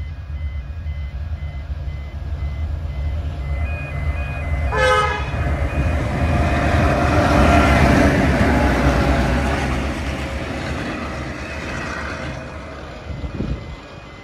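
Two SSR T-class diesel-electric locomotives hauling grain wagons past at speed: a deep diesel engine rumble that swells to its loudest as the locomotives go by about eight seconds in, with a short horn toot about five seconds in. The rumble then fades as the wagons roll away.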